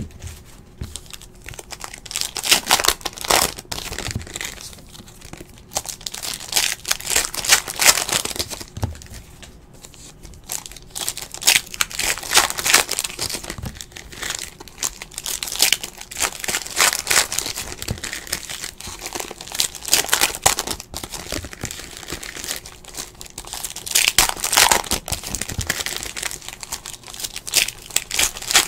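Trading card pack wrappers being torn open and crinkled, in irregular bursts of rustling.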